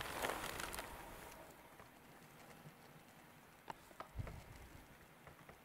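Faint rustling of a plastic bag and low plants as cloudberries are picked by hand, fading after the first second, then a few soft taps between three and a half and four seconds in.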